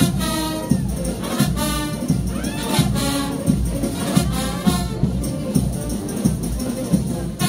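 Frevo band playing: brass phrases over a steady drum beat.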